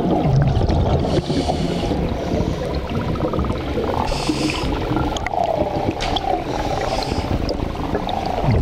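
Scuba regulator breathing underwater, heard through the camera housing: a hissing inhalation every two to three seconds over the steady rumble and gurgle of exhaled bubbles.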